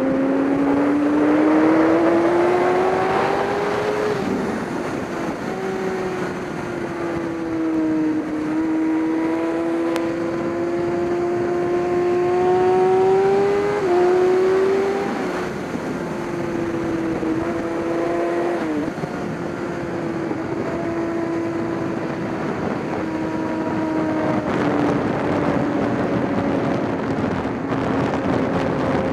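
A racing engine is heard under way at speed. Its note climbs under acceleration and falls back sharply about four seconds in, again near the middle and about nineteen seconds in, as the rider or driver shifts and lifts off for corners, all over a steady rush of noise.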